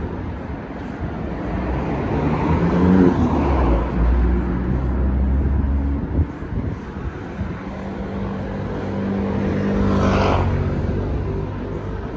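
Road traffic on a busy street: motor vehicles pass close by. One has a heavy low engine drone that swells about three seconds in, and another goes past near the end.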